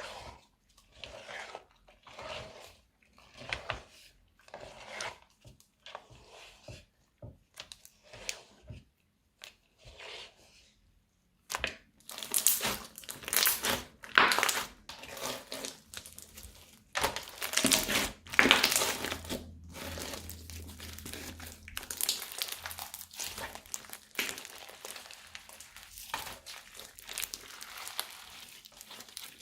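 Slime and plastic piping bags being squeezed and handled, giving crinkling and crackling sounds. For the first ten seconds there are soft crinkles about once a second; after a short pause the crackling turns louder and denser.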